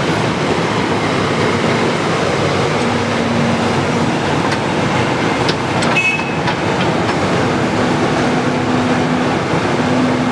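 Excavator running: a loud, steady machine noise with an on-and-off low hum, and a few sharp metallic clicks with a brief high tone about six seconds in.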